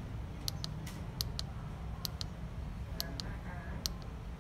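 Plastic arrow key on an HP Color LaserJet Pro MFP M181fw control panel being pressed repeatedly to scroll a menu, each press a quick double click, about once a second, over a low steady hum.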